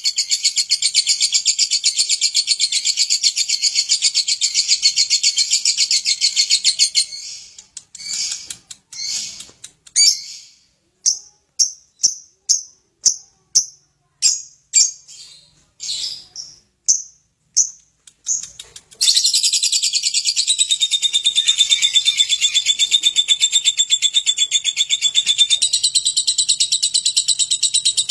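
Lovebird ngekek: a long, fast, continuous chattering trill. About seven seconds in it breaks into separate short chirps, roughly one a second, and at about nineteen seconds it goes back into the continuous trill.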